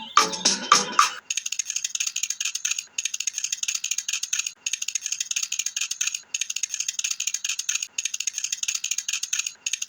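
A fast, even high-pitched rattling, pausing briefly about every one and a half seconds, starts about a second in after a moment of music.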